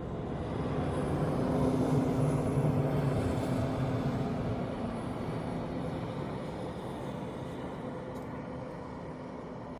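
A motor vehicle's engine passing by, growing louder to a peak about two seconds in and then slowly fading away.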